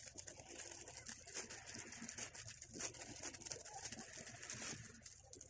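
Thin plastic barrier film crinkling and rustling as it is wrapped and twisted around a tattoo machine by hand, in a run of small crackles.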